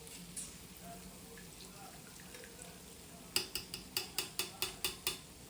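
Metal utensil clinking against a pot of frying oil, a quick run of about ten clicks near the end, as the fried amagwinya are lifted out; before that only a faint steady hiss.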